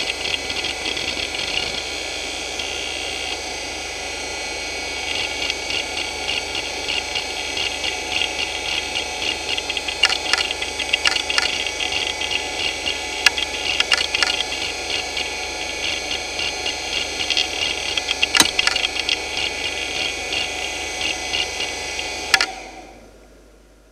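Hitachi DK225A-14 2.5-inch IDE hard drive spinning with fast head-seek ticking under a Speedsys benchmark, with several louder clicks; the owner calls this drive very unhealthy. Near the end it cuts off and winds down.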